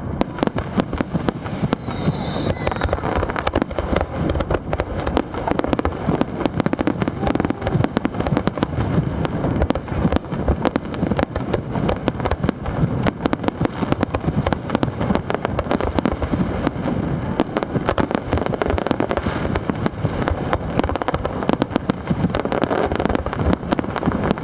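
Fireworks going off: a dense, continuous run of bangs and crackling pops.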